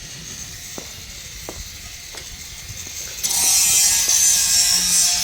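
Metalwork noise: a few scattered sharp clicks, then about three seconds in a loud, steady high hiss starts abruptly.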